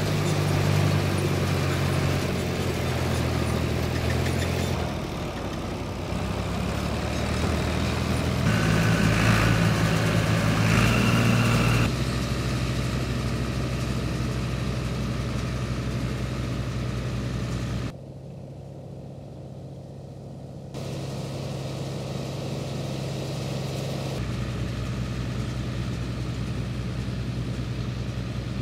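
Ford 4000 tractor's three-cylinder diesel engine running at a steady speed under baling load. The engine note changes abruptly several times, with one quieter stretch past the middle.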